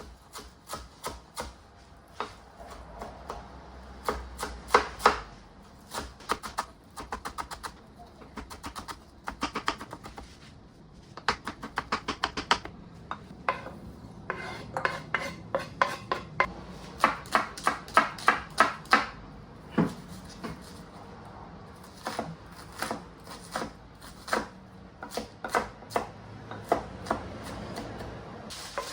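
Kitchen knife chopping food on a cutting board, in quick runs of sharp strokes, about four a second, with short pauses between runs.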